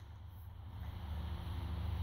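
Low, steady background hum with nothing else happening, slowly growing a little louder.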